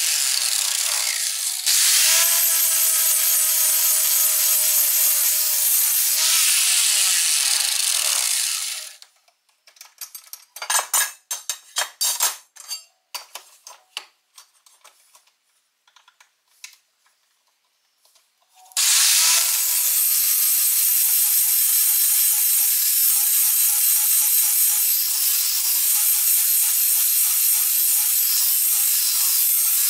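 Harbor Freight 4.5-inch angle grinder grinding the edge of a steel lawn mower blade, a steady high grating whine. It stops about eight seconds in, followed by about ten seconds of scattered metal clicks and knocks as the blade is handled in the sharpening jig, then the grinder starts again and grinds to the end.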